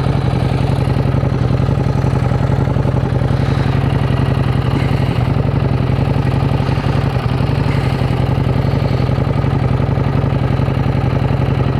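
Street rod's engine running steadily: an even, low exhaust note made of rapid firing pulses that holds at one pitch throughout.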